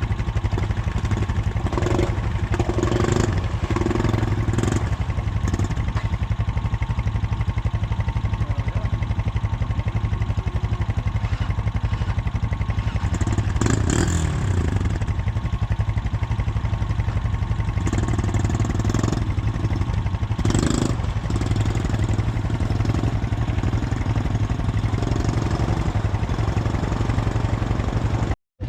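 ATV engine running steadily under riding, its pitch rising and falling several times with the throttle. The sound cuts out for a moment near the end.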